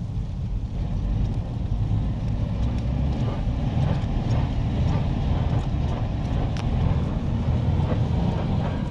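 A car's engine running steadily, a low, loud sound with scattered faint clicks above it.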